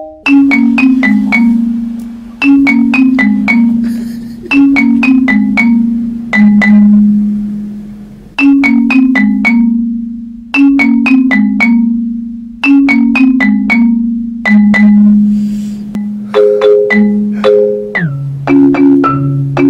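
Background music on a mallet-percussion instrument: short, falling runs of quickly fading notes, repeating about every two seconds and moving to lower notes near the end.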